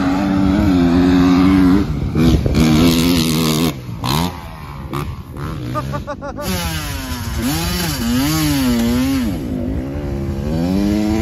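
Small two-stroke dirt bike engine running and being revved, its pitch holding steady at first, then rising and falling repeatedly in the second half.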